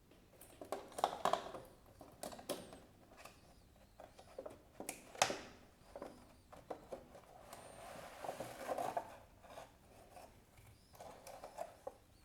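Packaging being opened by hand and sponges taken out: rustling and crinkling with scattered clicks and taps, the sharpest click about five seconds in.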